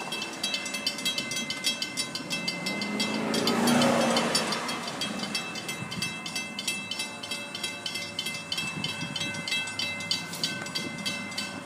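Railroad grade-crossing warning bell ringing with rapid, even strikes, the crossing signal activated for an approaching train. A car passes about four seconds in.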